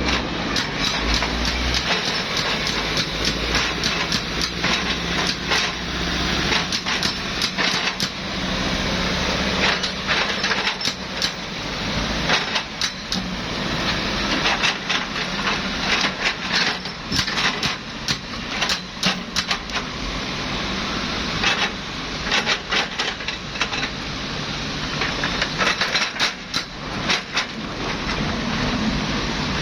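Excavator working: steady engine noise under frequent sharp knocks and clatters, typical of rock and stones striking the steel bucket.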